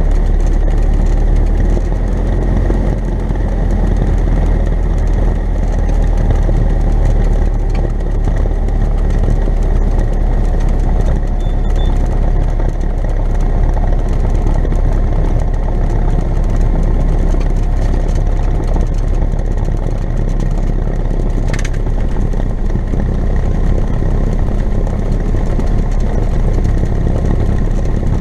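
Cessna 172N's Lycoming four-cylinder engine and propeller running steadily at low power, heard from inside the cockpit.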